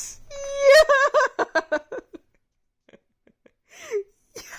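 A person's drawn-out "yeah" breaking into warbling laughter, then a few faint ticks and a short falling cry near the end.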